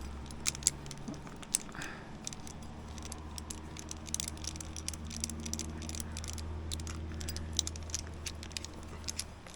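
Metal climbing gear (carabiners and other hardware) clinking and rattling as it is handled, in a run of sharp, irregular clicks over a steady low rumble.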